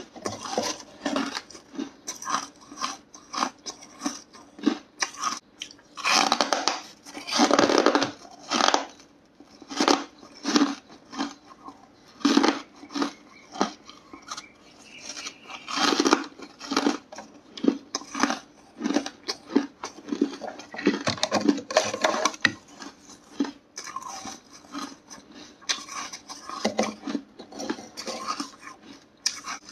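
Hard ice crunched between the teeth in big bites: dense sharp crunches and cracks, loudest in clusters every few seconds. Between bites there are clicks and scrapes as pieces of ice are broken off a freezer wall.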